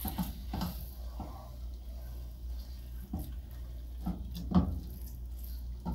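Wooden spatula stirring ground meat in a large metal pot, with short scrapes and knocks against the pot, the loudest about four and a half seconds in. A low steady hum runs underneath.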